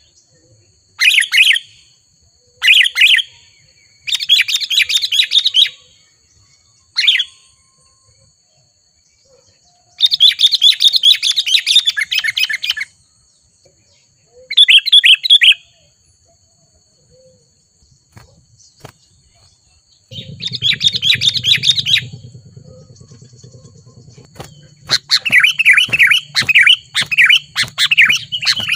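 Sooty-headed bulbul (kutilang) singing in repeated bursts of rapid chattering notes, with short pauses between bursts. A thin steady high whine runs underneath, and a low hum comes in about two-thirds of the way through.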